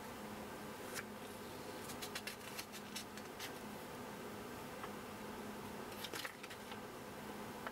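Paper instruction booklet being handled and its pages turned: short crisp rustles about a second in, a cluster from two to three and a half seconds in, and again around six seconds in, over a steady low hum.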